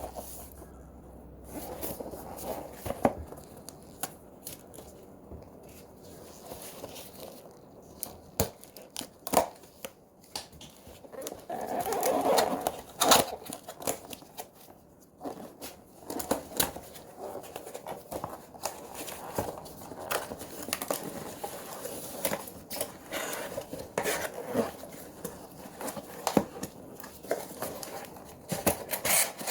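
Cardboard box being opened and its contents unpacked by hand: tearing, scraping and crinkling of the packaging, with many scattered clicks and knocks.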